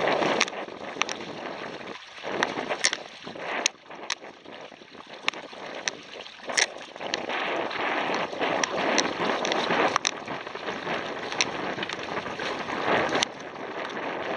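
Wind on the microphone and water rushing past the hulls of a double canoe under sail; the rush swells and fades every few seconds. Irregular sharp ticks and knocks come through it about once a second.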